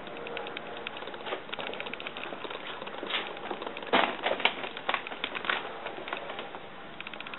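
Light, irregular mechanical clicking and ticking, with several louder clacks about three to five seconds in.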